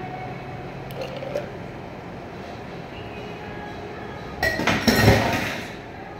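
Metal cocktail shaker tin and strainer clattering, with ice rattling inside, loudly for about a second and a half near the end, after a couple of light metal clinks about a second in.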